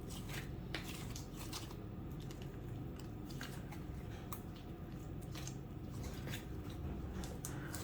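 Slime being squeezed and kneaded by hand, giving irregular small clicks and pops.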